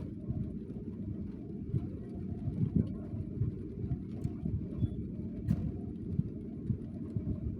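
Rain heard as a steady, muffled low rumble, with a few sharp clicks of drops scattered through it.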